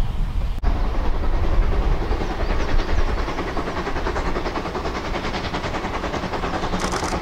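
Distant narrow-gauge steam locomotive working, its exhaust beating in a rapid, even rhythm over a steady low rumble.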